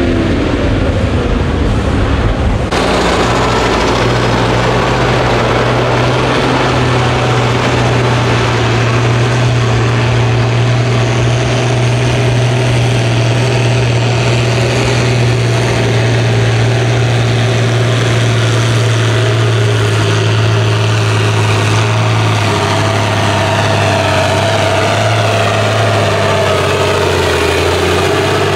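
Ford tractor's diesel engine held at high, steady revs under heavy load, dragging a weight-transfer sledge in a tractor pull.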